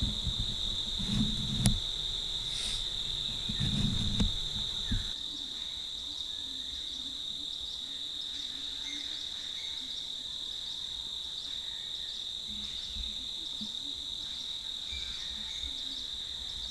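Steady, high-pitched drone of crickets. Low rumbling and a click or two during the first five seconds.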